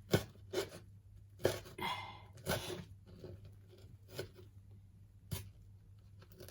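Kitchen food-prep handling: a few irregular knocks and taps of a knife and ingredients on a cutting board, with a brief rustle about two seconds in.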